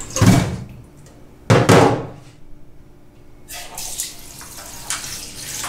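Water sloshing and splashing twice, sharply, about a quarter second and a second and a half in, then quieter running water from a tap.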